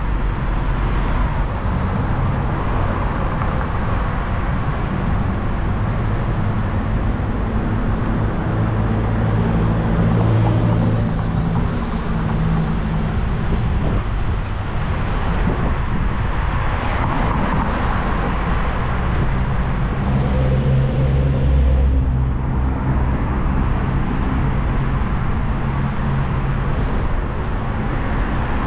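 City road traffic: a steady low rumble of motor vehicles, with car engines swelling and fading as they pass, once about a third of the way in and again about three-quarters through.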